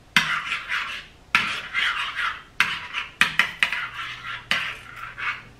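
A spoon stirring butter sauce, scraping and clinking against the dish in about six strokes.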